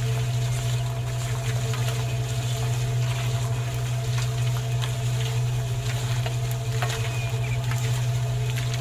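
A small electric motor hums steadily, with scattered light clicks and patter over it.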